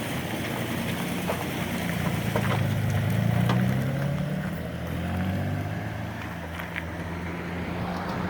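An engine running steadily, growing louder and slightly higher in pitch around the middle, then easing back.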